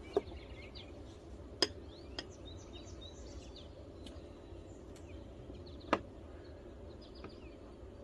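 A few sharp metallic clicks and clinks from tools and the small soldered brass connector pin being handled on a workbench: four in all, two of them louder.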